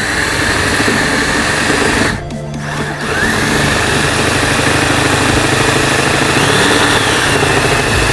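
Electric drill with a large bit boring through a car's sheet-metal body panel, its motor whining under load. It stops briefly about two seconds in, then starts again with the whine rising as it spins back up. The bit is cutting slowly, enough to raise the question of whether it is dull.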